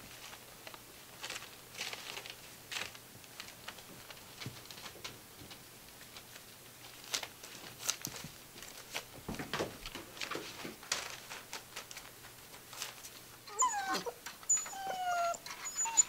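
Faint, scattered rustles and taps of Gordon Setter puppies scuffling on spread newspaper. Near the end the puppies start whimpering in high, wavering whines.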